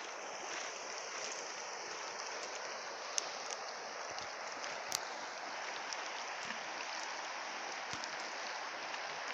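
A small river rushing steadily over its bed, with a few sharp clicks, the clearest about three and five seconds in.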